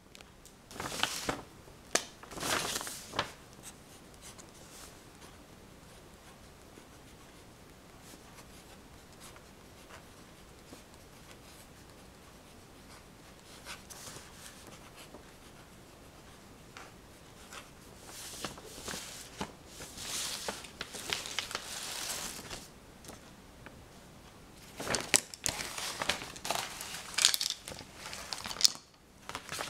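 Close-up crinkling and rustling handling noises in irregular bursts with quieter stretches between them.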